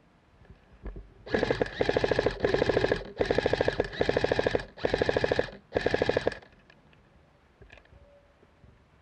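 G&G Top Tech T4-18 airsoft electric rifle firing on full auto in about seven short bursts of rapid, evenly spaced shots. The bursts start about a second and a half in and stop about six and a half seconds in.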